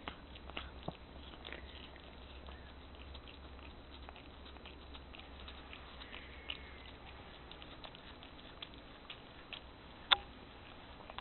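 A cat licking and chewing at a ripe nectarine held in the hand, making a run of small wet clicks and smacks, with one sharper click about ten seconds in.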